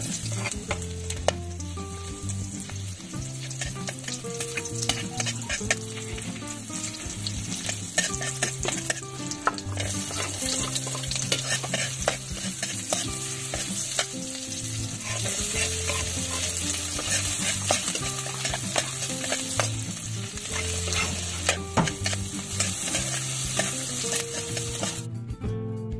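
Garlic, shallots and chilies sizzling in hot pork lard in a wok, stirred with a spatula that clicks and scrapes against the pan. The sizzle gets louder about ten seconds in, as the shallots go in.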